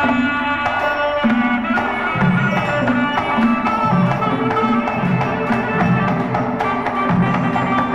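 Southern Thai traditional dance music: a melody over a steady drum beat.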